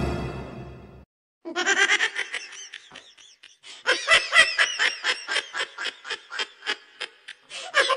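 Music fades out in the first second. After a short gap, a dubbed high-pitched comic laughing sound effect starts about one and a half seconds in: rapid 'ha-ha' pulses of about five a second, with a lull near three seconds.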